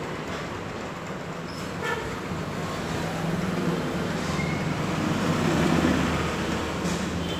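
Road traffic noise: a steady low engine rumble from passing vehicles, swelling in the middle.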